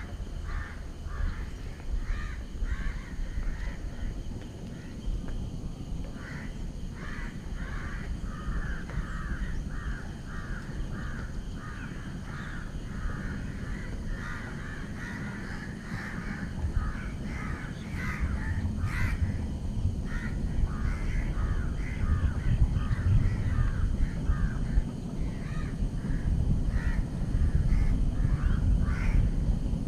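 Crows cawing over and over, a dense run of short calls with several a second, over a low rumble that grows stronger in the second half.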